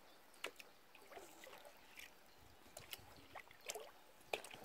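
Near silence: faint trickling and dripping water around a drifting inflatable kayak, with a few small scattered clicks.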